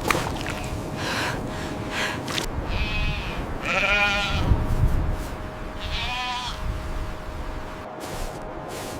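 An animal bleating: three short, wavering calls, about three, four and six seconds in, over a steady rushing background.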